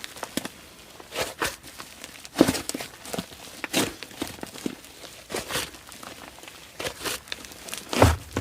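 Slime being squeezed and pressed by hand, giving irregular crinkly crackles and soft sticky pops, one or two a second.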